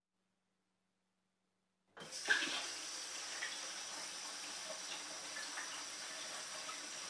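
Near silence, then about two seconds in a kitchen tap comes on and water runs steadily into the sink.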